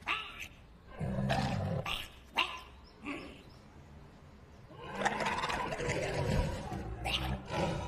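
Cartoon polar bear character's wordless voice: a short grunt about a second in, a sharp knock a moment later, then a long loud yell from about five seconds in.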